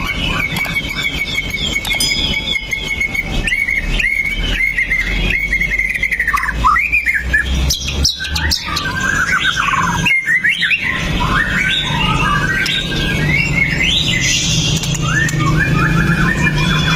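White-rumped shama singing: a varied run of whistled phrases, quick trills and sharp chattering notes, over a steady low hum.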